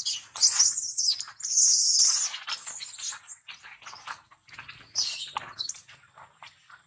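Baby macaque giving shrill, high-pitched distress screams in repeated bursts as it is dragged along the ground by a young monkey. The longest, loudest scream comes about two seconds in, and the cries fade out near the end.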